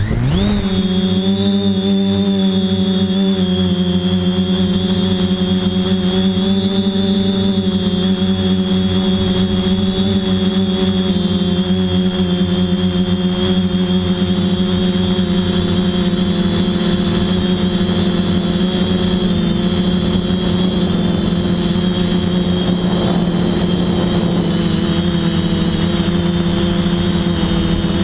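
TBS Discovery FPV quadcopter's brushless motors and propellers spinning up within the first half second, then running steadily in flight with a loud, even buzz, heard from the camera on the craft itself.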